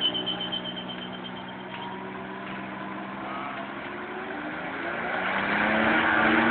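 Car engine during a burnout: a high tyre squeal dies away in the first second, the engine holds a steady note, then revs up and gets louder from about five seconds in.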